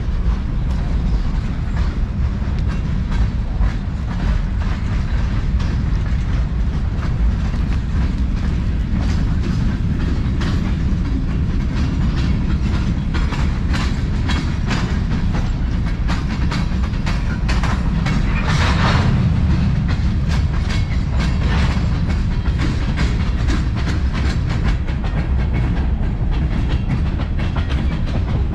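Freight train rolling by on the adjacent tracks: a steady low rumble with the rapid clickety-clack of wheels over rail joints, turning briefly sharper and higher about two-thirds of the way in.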